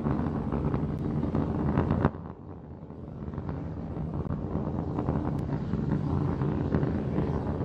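Starship SN15's three Raptor rocket engines burning during ascent: a steady, deep rumbling noise. The rumble drops away sharply about two seconds in, then builds back up over the next couple of seconds.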